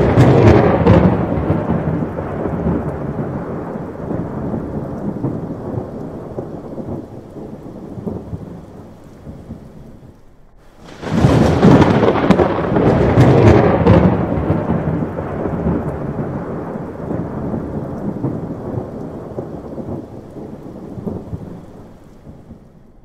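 Two long peals of thunder. The first is already rumbling loudly and fades away over about ten seconds. The second breaks about eleven seconds in, rolls heavily for a few seconds and then slowly dies down, with steady rain underneath.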